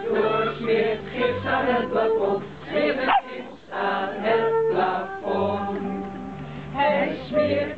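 A group of people singing a song together, with held low notes from an accompanying instrument.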